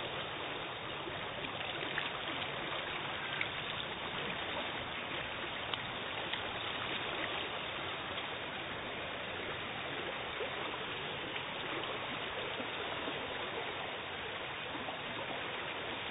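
Floodwater rushing steadily through a flooded lane, with a few brief ticks in the first several seconds.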